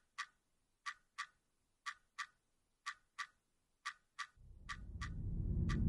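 Clock ticking in pairs, tick then tock, about one pair a second over near silence. From about four and a half seconds in, a low rumble swells up and grows louder beneath the ticks.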